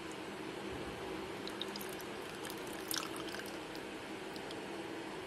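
Milk being poured from a small cup into a glass bowl: a faint trickle with a few light ticks, the loudest about three seconds in, over a steady low hum.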